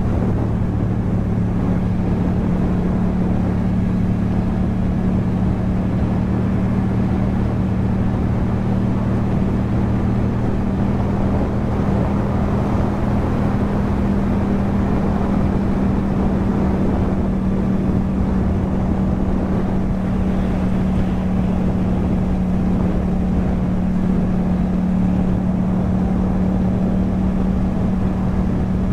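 Yamaha MT-07's 270-degree-crank parallel-twin engine through an Akrapovič exhaust, running at a steady cruise with its note holding an even pitch.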